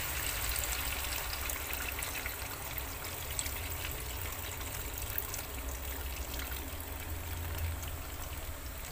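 Coconut milk pouring in a steady stream into a hot frying pan, over the light crackle of the frying spiced jengkol.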